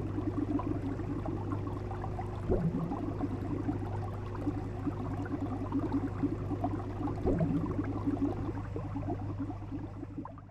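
Aquarium fish tank ambience: water bubbling and gurgling over a steady low pump hum, fading out near the end.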